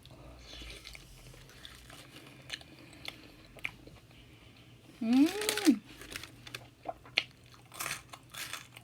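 A person chewing crunchy fried jalapeño poppers coated in Hot Cheeto crumbs, with small crunches throughout and more after the middle. About five seconds in, a short voiced hum from the eater rises and falls in pitch.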